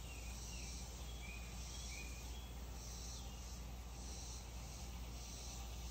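Insects calling in a steady rhythm, a high buzzy pulse about every two-thirds of a second, over a low steady hum, with a few faint chirps in the first couple of seconds.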